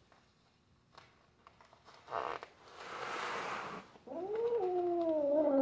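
A cat zipped into a restraint bag, upset, gives a breathy hiss and then a long, low, drawn-out yowl from about four seconds in that rises, then slides down in pitch: the distress of a cat unhappy at being restrained.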